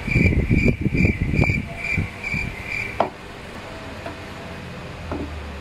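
Aluminium tent-pole sections being handled and fitted together: knocking and rubbing for the first couple of seconds, then a single sharp click about three seconds in. A high chirp repeats about twice a second behind it and stops at about the same moment.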